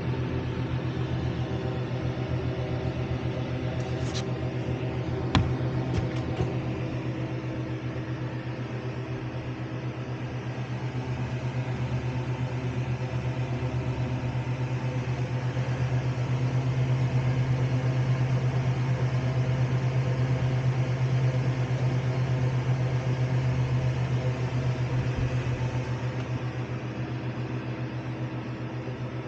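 Homemade refrigerator-cabinet egg incubator running with a steady electric hum, with a few sharp clicks about four and five seconds in.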